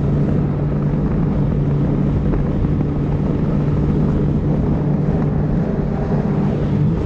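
Jet ski engine running steadily at cruising speed, its pitch held even, with water rushing past the hull and wind buffeting the microphone.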